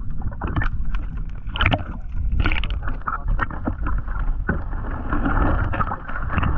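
Muffled water sloshing and splashing heard through a camera held underwater, over a steady low rumble, with many short knocks.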